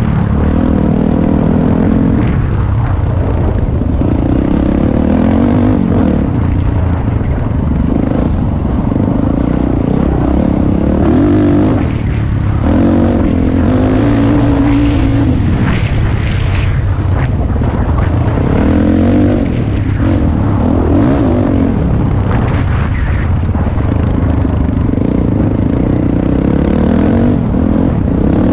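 Dirt bike engine running under load, revving up and down again and again with the throttle as the bike is ridden along a dirt trail, heard from on board.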